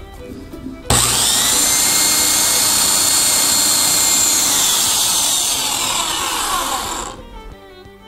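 Electric drill starts with a jolt about a second in and runs at steady speed with a high whine and hiss, then winds down in pitch and stops near the end. It is spinning a fan motor's shaft that is being polished with sandpaper.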